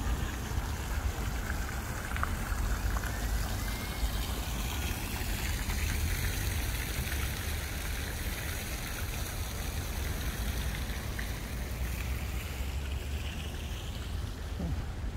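Steady splash and hiss of a park fountain's jet falling into its pond, over a low steady rumble.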